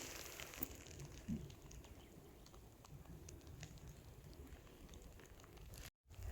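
Faint outdoor ambience: a low wind rumble with scattered light ticks and taps.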